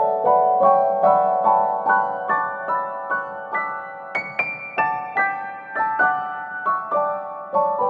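Background piano music: a gentle melody of single struck notes, about three a second.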